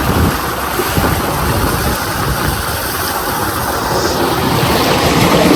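Waterfall splashing: a steady rush of falling water.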